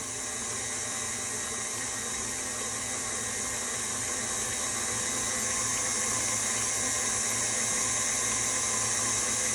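KitchenAid Artisan stand mixer running, its motor humming steadily with a high whine as the dough hook kneads stiff bread dough; the sound grows gradually a little louder.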